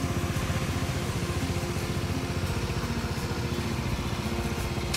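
Small scooter engine idling steadily with an even, rapid putter.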